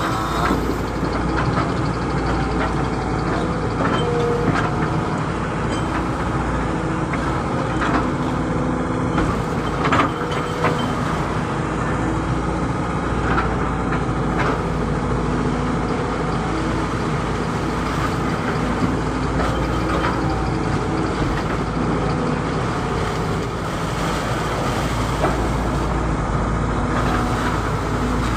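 Excavator's diesel engine running steadily under working load, with whining tones that shift in pitch as it works and a few sharp knocks.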